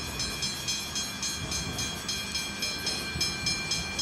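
Westinghouse hybrid mechanical level crossing bells ringing rapidly, about five strokes a second, with a low rumble underneath.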